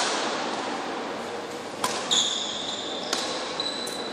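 Badminton rackets striking a shuttlecock in a rally, about four sharp hits a second or so apart, with short high shoe squeaks on the court floor, in a large indoor hall.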